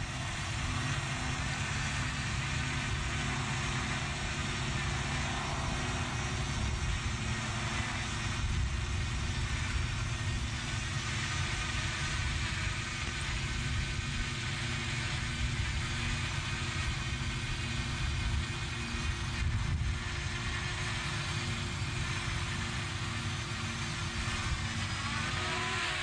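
Wind buffeting the microphone: a steady low rumble, with a faint steady hum underneath.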